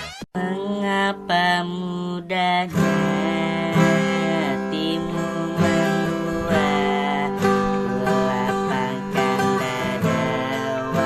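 A song: a singing voice over strummed acoustic guitar, starting after a brief break near the start.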